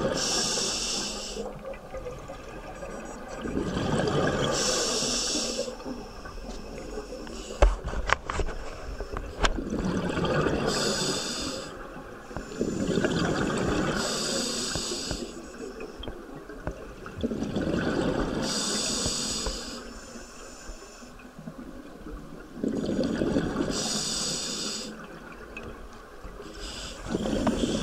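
Scuba diver breathing through a regulator underwater: slow breaths about every four to five seconds, each a hissing draw followed by a rush of exhaust bubbles. A few sharp knocks about eight seconds in.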